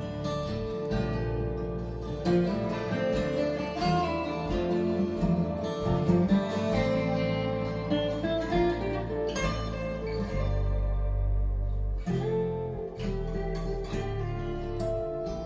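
Instrumental break of a song, with acoustic guitar picking and strumming over a steady bass line, played back through DIY fast transmission-line loudspeakers.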